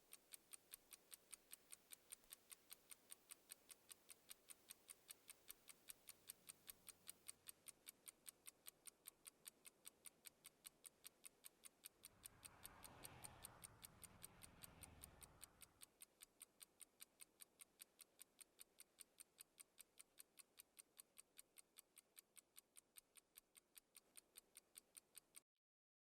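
Faint, steady ticking, about three ticks a second, with a soft swell of noise for a few seconds in the middle; it cuts off suddenly near the end.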